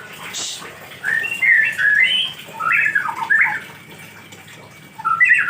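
Songbird singing short, quick warbling whistled phrases, in two bursts, the second near the end.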